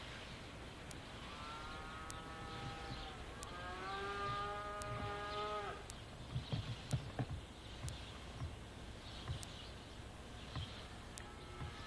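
Cattle mooing: two long calls in a row, the second lower and sliding slightly upward, followed by a few dull low thumps.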